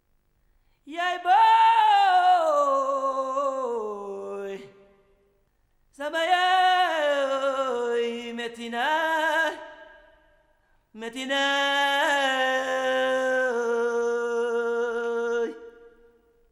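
A solo operatic voice singing unaccompanied: three long held phrases of about three to four and a half seconds each, with short pauses between and a wavering vibrato in the pitch.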